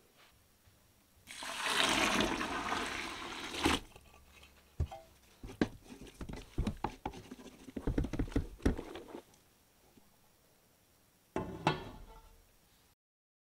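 Hot water poured into a pot of crushed barley malt, a rushing splash for about two seconds. Then a wooden spoon stirring the mash and knocking against the pot's side, and near the end a metal lid set down on the pot with a brief clatter.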